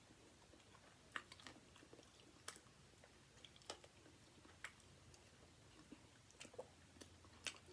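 Faint chewing of crispy fried chicken wings, with soft crunches and mouth clicks spaced about a second apart.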